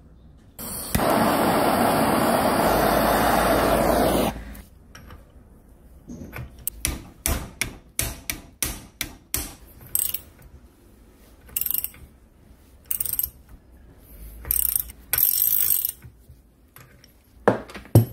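Ratchet wrench and socket unscrewing the air inlet fitting from a jackhammer body held in a vise: a run of ratchet clicks, about two to three a second, then several short bursts of ratcheting. Before that there is a loud steady rushing noise lasting about three and a half seconds, and near the end a single sharp knock.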